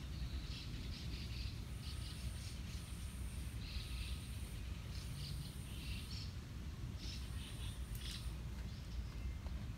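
Small birds chirping in short, scattered bursts over a low, steady outdoor rumble.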